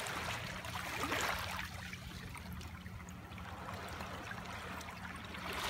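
Seawater washing and trickling among kelp-covered shoreline rocks in a small rock pool. A surge swells about a second in and again near the end.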